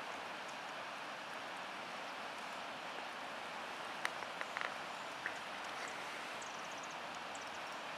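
Steady outdoor hiss, with a few faint clicks and short high chirps about halfway through.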